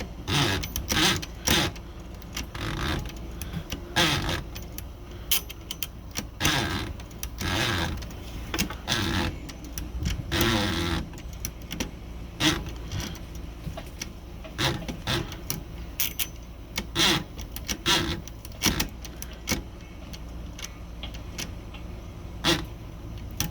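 Irregular metallic clicks and clatter from an Olympia SG-3 typewriter's platen and paper injector assembly as it is fitted and its parts are worked by hand, with a couple of longer sliding or rubbing sounds partway through.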